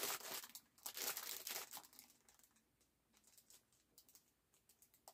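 Clear plastic bag crinkling and rustling as it is handled to get a new cap out. The crinkling is loudest in the first two seconds, then thins to faint, scattered rustles.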